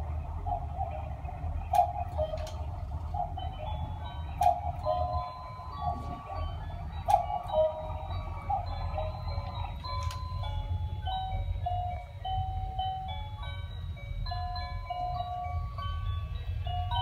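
Quartz Black Forest cuckoo clock calling cuckoo over and over, with a few sharp clicks, while an electronic melody starts up about three seconds in. The calls stop around ten seconds in and the melody plays on.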